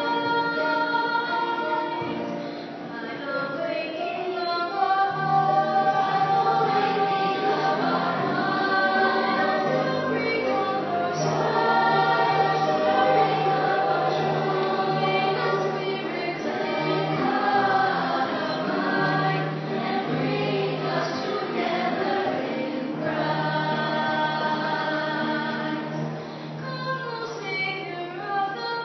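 A small choir singing a slow hymn-like song in long held notes.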